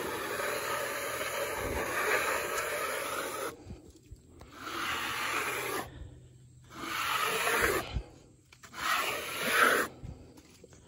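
A metal hand scraper dragged along the freshly sawn face of a wooden beam, scraping off sawdust and torn fibres. It scrapes continuously for about three and a half seconds, then makes three separate strokes about two seconds apart.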